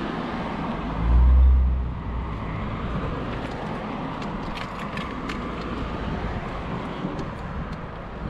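Steady street traffic background, with a brief loud low rumble about a second in and a few light clicks near the middle.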